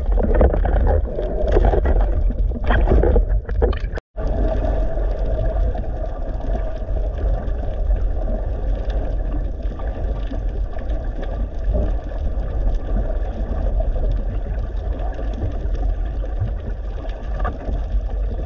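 Muffled underwater water noise picked up by a diving camera: a steady low rumble with sloshing and bubbling, broken by a sudden brief dropout about four seconds in.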